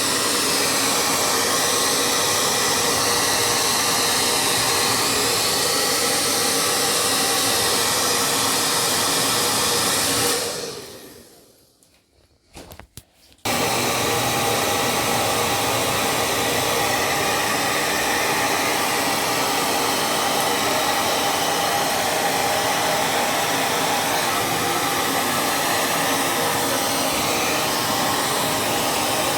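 Hand-held hair dryer blowing steadily at full power. About ten seconds in it winds down over a couple of seconds into near silence, with a few faint clicks. It then comes back on suddenly about three seconds later and runs steadily again.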